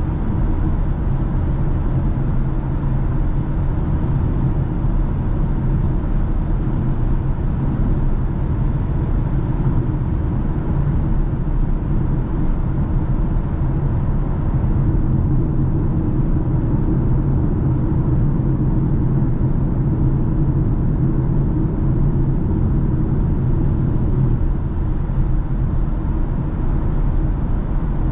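BMW cruising at a steady speed through a road tunnel, heard from inside the cabin: an even, low rumble of engine and tyre noise with no gear changes or bursts of throttle.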